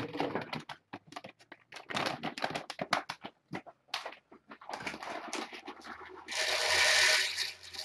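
Kittens scrambling and pawing right at the microphone: a run of quick scratches, clicks and rustles, then a loud rough scrape lasting about a second near the end.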